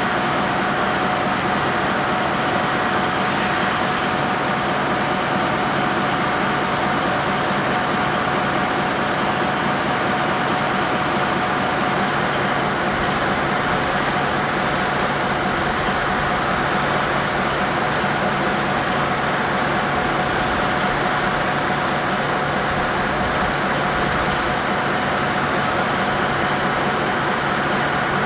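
Heavy-duty wrecker truck's diesel engine running steadily, a constant rumble with a steady whine over it and no change in speed.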